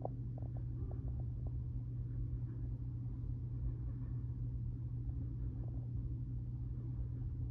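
Long freight train passing, heard from inside a house through a closed window: a steady low rumble with faint irregular clicks.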